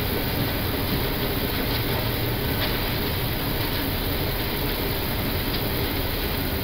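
Steady cockpit noise of an Airbus A320 rolling out on the runway after landing: the rumble of the wheels on the runway and air noise, with the engines at idle as the airliner slows to taxi speed.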